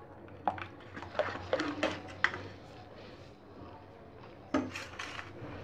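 Steel ladle stirring thick gram-flour batter in a stainless steel bowl, clinking lightly against the bowl several times, with a louder knock about four and a half seconds in.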